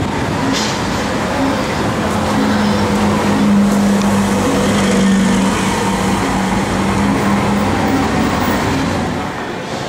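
Mercedes-Benz OC500LE bus with a CNG engine driving past close by, its engine hum growing louder as it draws level and fading as it pulls away.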